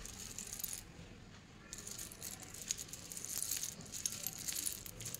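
Pieces of white slate pencil clinking and clattering against one another as a hand handles the pile: a busy run of light, hard ticks, thinner for a moment about a second in, then thick again.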